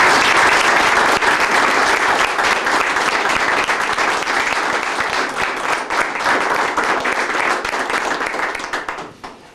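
A group of people applauding with steady, sustained clapping that dies away near the end.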